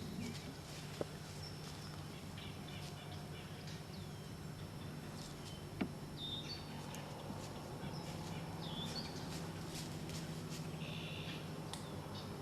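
Small birds chirping now and then over a steady low hum, with a couple of faint clicks.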